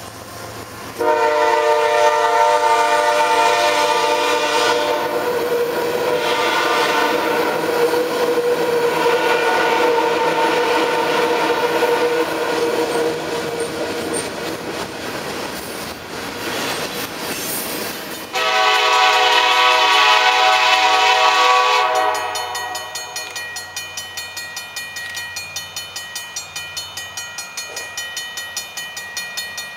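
CN diesel freight locomotives' multi-chime air horns blowing long blasts over the rumble of a freight train's cars rolling past on the rails. A second horn blast starts abruptly about two-thirds of the way in and lasts a few seconds. After it comes a bell ringing about twice a second.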